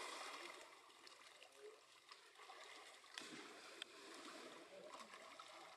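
Near silence: faint, even outdoor background hiss with a couple of light clicks about three seconds in.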